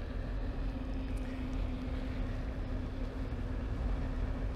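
Inmotion electric unicycle's hub motor running at a steady pitch while cruising at about 30 km/h, over a low steady rumble of riding noise.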